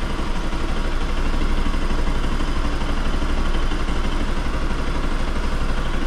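Bajaj Pulsar NS200's single-cylinder engine idling steadily while warm.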